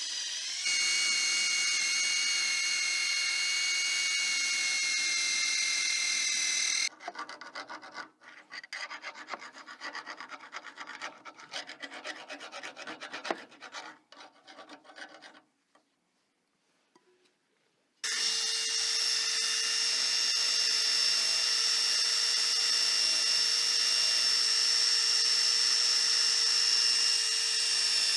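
A small power tool whines at a steady speed, as in rust removal on steel and chrome parts. About seven seconds in it gives way to hand scrubbing and rubbing strokes with short pauses, then goes quiet for a couple of seconds. The tool starts up again and runs steadily to the end.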